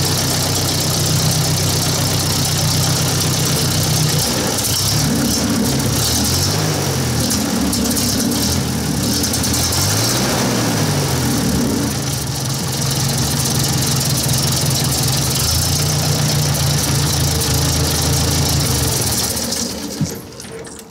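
1953 Ford Golden Jubilee tractor's inline four-cylinder gasoline engine running at idle. About four seconds in, the engine speed rises and falls several times before settling back to a steady idle. It is shut off near the end.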